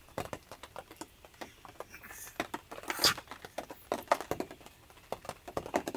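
A Pomeranian rummaging in a small suitcase of plush toys and a towel: irregular soft taps, rustles and clicks as it noses and pulls at the contents, with one sharper click about three seconds in.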